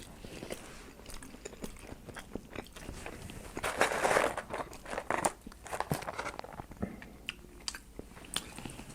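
A person chewing and biting food close to the microphone: a stream of short, wet mouth clicks, with a louder stretch a little under halfway through.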